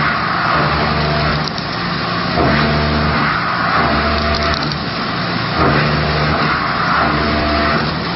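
CNC horizontal machining center running, its spindle and cutting making steady tones over a noisy hiss. The tones break off and start again every two to three seconds as cuts and moves change.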